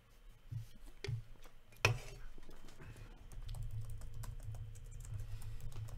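Light, irregular clicking of typing on a computer keyboard, with one sharper click about two seconds in and a low rumble underneath from then on.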